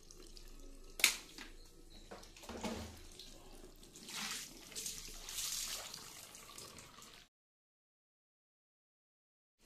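Tap water running from a chrome faucet into a ceramic bathroom sink. There is a sharp knock about a second in, and the water noise swells louder between about four and six seconds in. The sound cuts off to silence a little after seven seconds.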